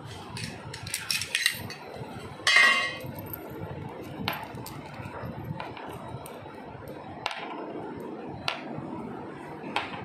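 Small cylindrical items set down one at a time on the pan of a piece-counting electronic scale, each giving a sharp click or clink, with a louder ringing clink about two and a half seconds in.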